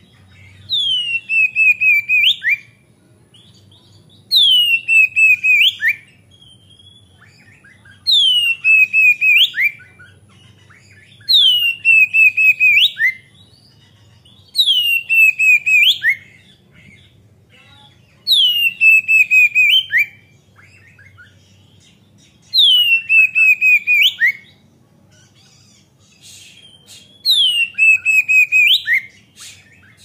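Male oriental magpie-robin singing the same loud phrase over and over, about eight times. Each phrase is a falling whistle that breaks into a quick rattle and ends in a short upward note, with pauses of a couple of seconds between them.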